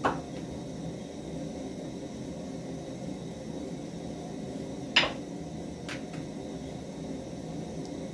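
Steady low hiss with a few sharp knocks of kitchen utensils, the loudest about five seconds in and a lighter one just after.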